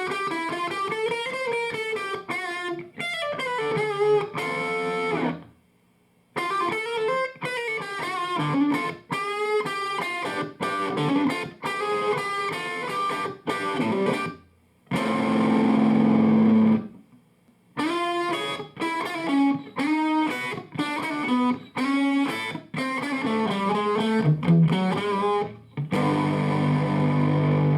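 Electric guitar played through a Fender The Twin tube amp with four 6L6GC power tubes. It plays single-note lead phrases with sliding, bending pitches, breaks off twice briefly, and lets ringing chords sustain about halfway through and again near the end.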